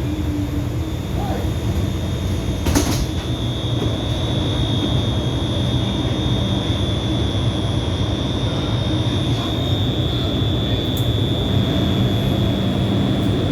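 New York City subway car standing at a station with its doors open: a steady low rumble and hum. A short sharp knock comes about three seconds in, and a steady high whine starts at about the same point and holds.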